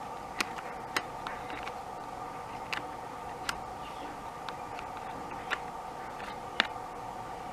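Irregular sharp clicks and light taps, about ten of them, as bolts and a plastic body cover are worked loose on a Sur Ron electric dirt bike, over a steady background hum.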